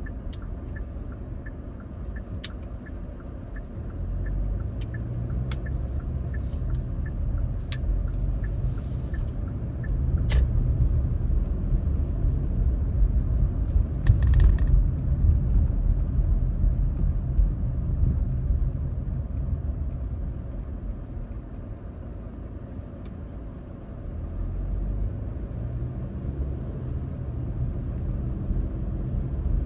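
Car interior rumble of engine and tyre road noise while driving, swelling as the car speeds up around 4, 10 and 14 seconds in, easing off about two-thirds of the way through, then rising again. A few light clicks sound in the first ten seconds.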